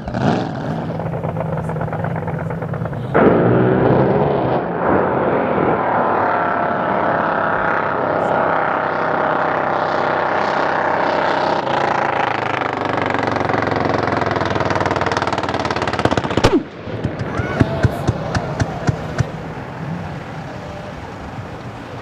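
Supercharged drag boat engine running at full throttle, loud and steady, then cutting off abruptly about 16 seconds in as the boat shuts down at the end of its run. A quick string of sharp exhaust pops and cracks follows for a few seconds, fading as it coasts.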